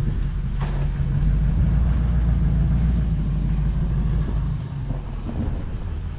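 Vehicle engine running steadily, a low even hum with road or wind noise over it.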